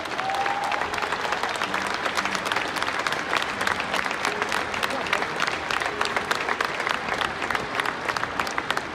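Crowd of baseball fans in the stands applauding, with many sharp hand claps from fans right beside the microphone.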